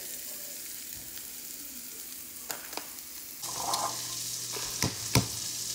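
Shiitake mushrooms sizzling in butter and oil in a frying pan: a steady hiss with a couple of faint clicks. About three and a half seconds in, it changes abruptly to a louder hiss with a low steady hum and several sharp knocks.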